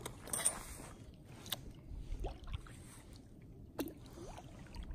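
Paddle strokes splashing in the water and water lapping against the hull of a small paddle boat, with a splash about half a second in and a few faint, short rising squeaks near the middle and near the end.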